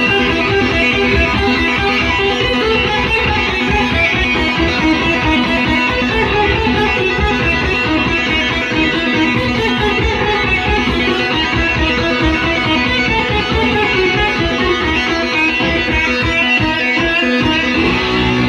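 Electric guitar played live through an overdriven amp, a continuous run of notes with no break.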